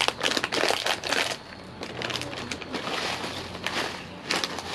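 Crinkly plastic snack bag being torn open and handled: a dense crackle in the first second or so, then softer rustling with a few sharper crinkles near the end.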